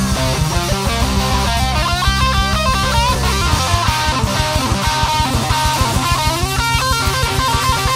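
Blues recording: an electric guitar plays a quick lead line with bent notes over a steady beat.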